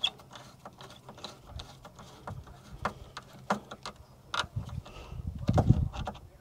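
Irregular small clicks and rattles of wiring, a screwdriver and interior trim being handled as wires are pushed into a car's side panel, with a few louder low thumps about five seconds in.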